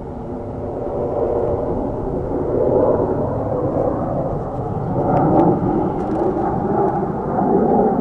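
Jet noise from the F-35B Lightning II's single F135 afterburning turbofan as the jet flies its display. A steady rumble that grows louder over the first couple of seconds, then holds.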